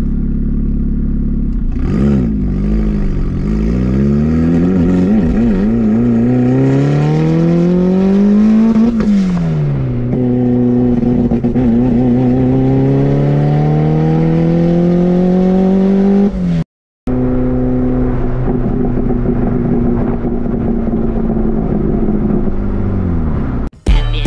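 Audi A4's swapped 2.5-litre 07K five-cylinder engine heard from inside the cabin, accelerating through the gears: a long rising pull, a gear change about nine seconds in, a second rising pull, then steadier running that eases off near the end.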